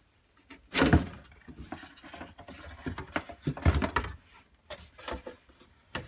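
Vented rear shield of a refrigerator being pulled off its back: a sharp knock about a second in, then scattered clicks, rattles and scrapes, with another cluster of knocks a little past halfway.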